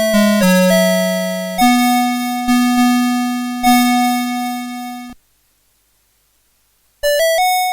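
Mid-1990s Citizen Melody Box 30 melody alarm clock playing a tune in electronic tones, a melody over an accompaniment, each note fading after it sounds. The tune ends about five seconds in, and after a couple of seconds of silence the next tune starts with a run of quick notes.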